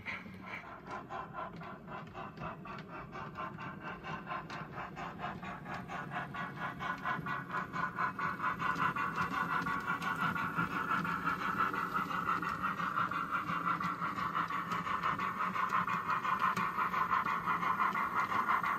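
Model train running slowly: a BR 50 model steam locomotive moving freight wagons over the track and switches, with a rapid, even ticking and a hum that grow louder as the locomotive comes closer.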